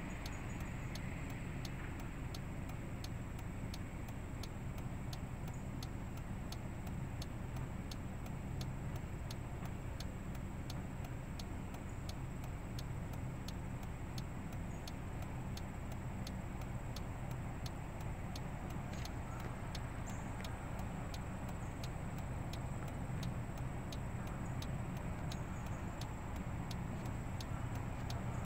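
A steady low rumble, with a faint, even ticking about twice a second.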